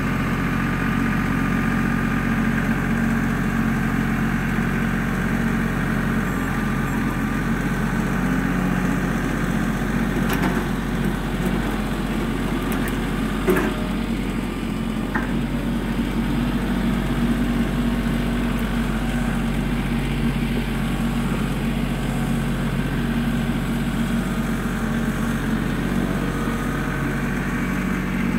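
LS compact tractor's diesel engine running steadily while pulling a box blade over loose dirt, with one sharp knock about halfway through.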